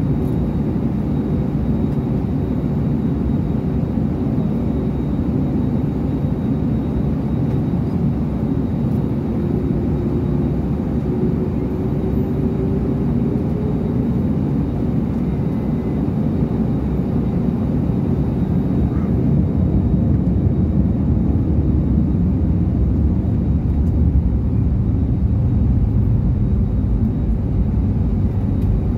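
Steady low rumble of an Airbus A321neo's Pratt & Whitney geared turbofan engines at low taxi power, heard from inside the cabin. The rumble grows somewhat louder about two-thirds of the way through.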